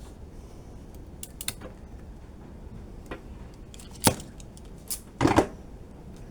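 Irregular sharp clicks and light rattles of small parts and hand tools being handled while wiring an electrical plug, the loudest a short cluster of clatter about five seconds in.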